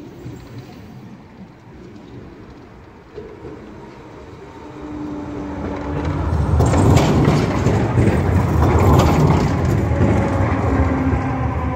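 A PESA 121N three-section low-floor tram approaches and passes close by. It grows from a faint rumble to a loud rumble of wheels on rail a little past halfway, with sharp clicks as it runs over the track crossing, then fades slightly.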